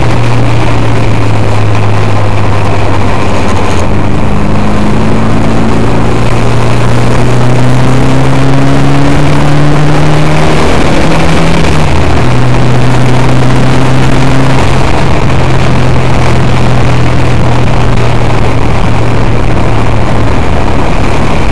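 Car engine heard from inside the cabin, very loud, its note climbing slowly for about ten seconds, dropping briefly, then holding steady, over a constant rushing noise.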